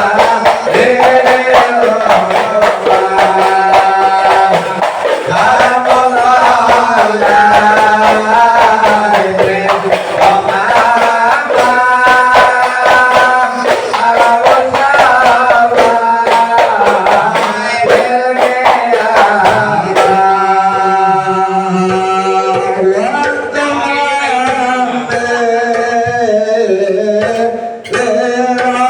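Music: a song with singing and drums, its sound changing about twenty seconds in.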